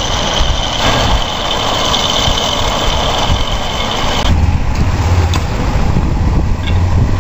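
Metal lathe turning a threaded metal boss: the cutting tool takes a cut with a steady high whine over the machine's running noise. About four seconds in the cut ends and the high whine stops, leaving the lathe's steady low hum.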